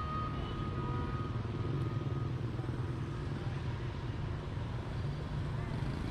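Steady street traffic, mostly motorbikes running past, with an even low engine rumble and no single standout event.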